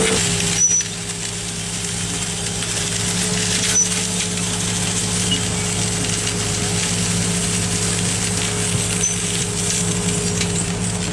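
Construction machine engine running steadily at a constant hum, with a few light knocks about a second in and again a few seconds later.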